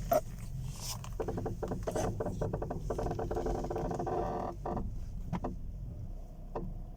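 Peugeot 308's front suspension creaking as the steering wheel is turned: a sharp click, then a drawn-out, crackly squeak that comes and goes. The creak persists after new springs, struts and top-mount bearings were fitted.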